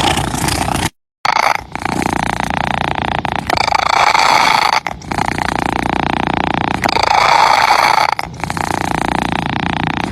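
Domestic cat purring close to the microphone, a steady rough purr that dips briefly every second or two between breaths. The sound drops out completely for a moment about a second in.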